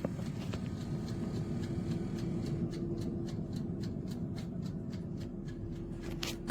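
Countertop convection oven running with a steady low fan hum, with light crackling clicks, several a second, that begin a little over a third of the way in.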